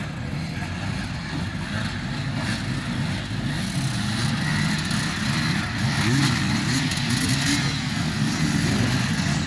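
Several enduro dirt bikes' engines revving unevenly in turn, growing louder about halfway through as the riders close in.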